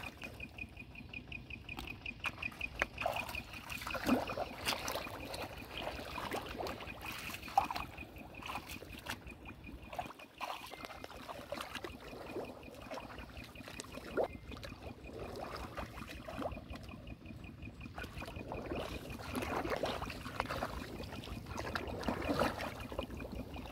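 Irregular splashing and sloshing of shallow muddy water as bare hands dig and scoop through the mud, with the wet sloshing of wading steps. A faint, rapid, evenly pulsing high note runs underneath, mostly in the first half.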